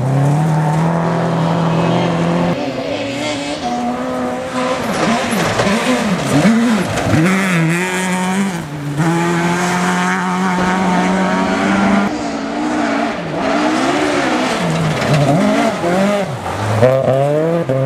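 Rally cars at speed on a gravel stage, one after another, their engines held at high revs for stretches, with repeated quick drops and climbs in pitch as they lift off and change gear through corners, and revs climbing again near the end.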